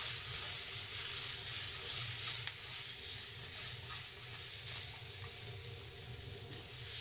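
Moroccan flat green beans and garlic sizzling in sesame oil in a frying pan over low heat as they are stirred with chopsticks, with a light click of the chopsticks against the pan about two and a half seconds in.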